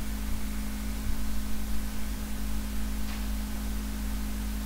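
Steady electrical hum and hiss from an open microphone, with a faint click about three seconds in.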